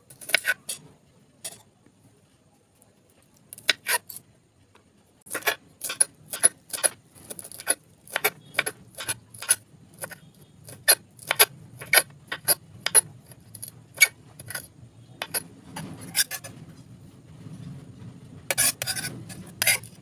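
Kitchen knife chopping fresh coriander leaves on a marble counter: sharp knocks of the blade, a few at first, then a steady run of about two strokes a second, with a quicker cluster near the end.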